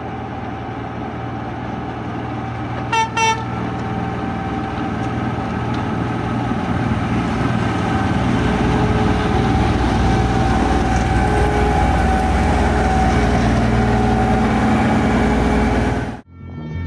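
Railway snow-blower plow running: a steady noise of its engine and snow-throwing blowers that grows louder as it approaches and passes close. Two short horn toots about three seconds in.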